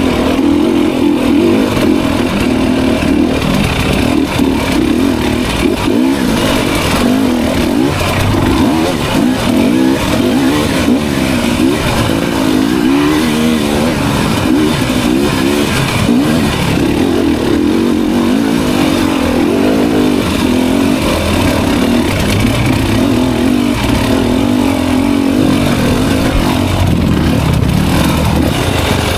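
Dirt bike engine running continuously, its revs rising and falling as it is ridden.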